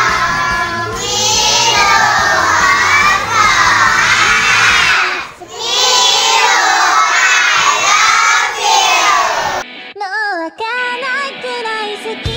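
A group of young children shouting a chant together over a pop backing track with a steady beat, with a short break about five seconds in. About ten seconds in the shouting stops and a single sung voice of the song starts over quieter music.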